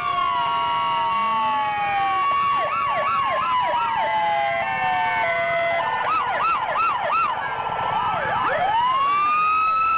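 Several fire truck sirens sounding at once, overlapping: slow wails that rise and fall, mixed with quick yelping cycles of about four a second, with a wail climbing again near the end.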